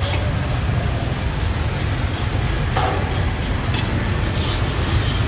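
Food market ambience: a steady low rumble with scattered clicks and knocks over it.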